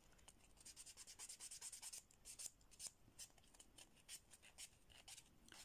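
Small sponge nail buffer rubbed quickly back and forth over a gel-coated fingernail, buffing the cured gel surface smooth. Faint scratchy strokes, several a second, most rapid in the first two seconds.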